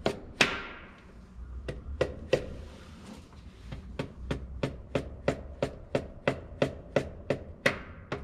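A hammer tapping Detroit 6-71 cylinder liners down into the engine block to seat them fully. A few scattered strikes come first, then a steady run of about three taps a second.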